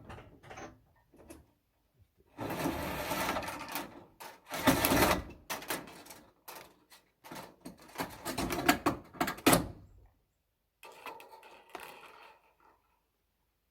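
Rattling and scraping handling noises in several bursts with sharp clicks, the loudest about five seconds in.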